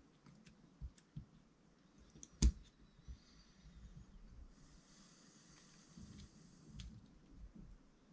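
Scattered small clicks and taps of hard parts being handled while an RC car differential is assembled by hand, with one sharper knock about two and a half seconds in and a brief soft rustle in the middle.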